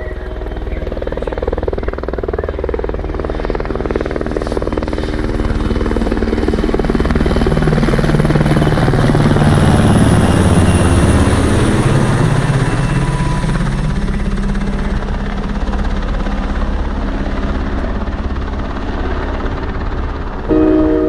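Helicopter passing overhead: a fast chopping of rotor blades that grows louder towards the middle and then slowly fades.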